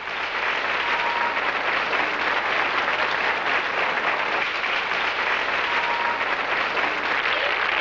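A large crowd applauding: dense clapping that swells in during the first moment and then holds steady.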